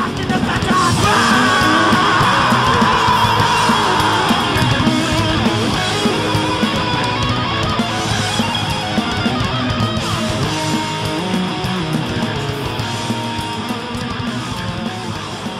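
Thrash metal music with electric guitar, bass and drums, getting a little quieter toward the end.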